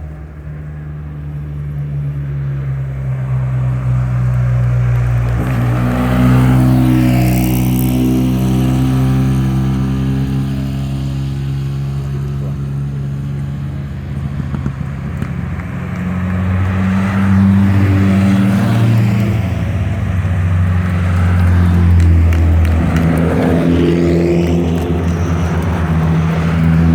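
Hill-climb race cars driving past one after another at low speed on the descent, engines running loud at low revs, each swelling as it passes and fading away.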